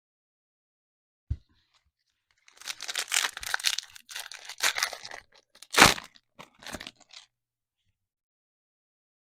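Trading-card pack wrapper being torn open and crinkled, with a light knock about a second in and the loudest sharp rip about six seconds in.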